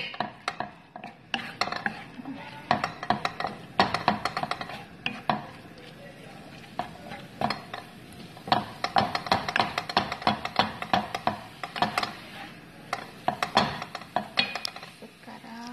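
Wooden spatula stirring and scraping minced chicken and spices around a pan, in irregular runs of quick scrapes and taps against the pan.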